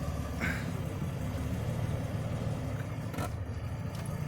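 Car engine idling steadily with a low, even rumble, broken by two brief sharper sounds, one about half a second in and one after about three seconds.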